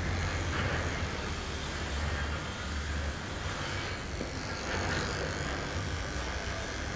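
Corded electric hair clippers running with a steady low buzz while being worked over short hair on the head.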